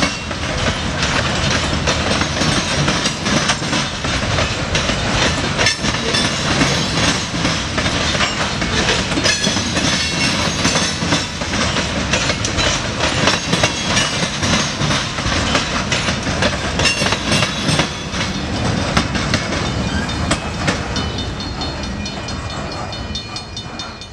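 Freight train of covered hopper cars rolling past close by, with a steady rumble and repeated clacks of the wheels over the rail joints. The sound dies away near the end as the last cars pass.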